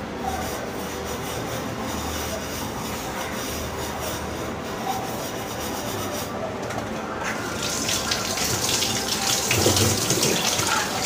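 A terracotta clay bottle being scrubbed by hand with a scrubber, then, about seven seconds in, a kitchen tap running and splashing over the bottle as it is rinsed in the sink.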